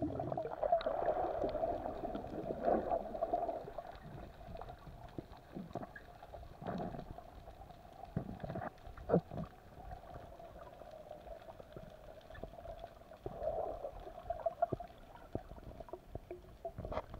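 Muffled underwater sound through an action camera's waterproof housing: gurgling of air bubbles and moving water, with scattered sharp clicks and knocks, the loudest about nine seconds in.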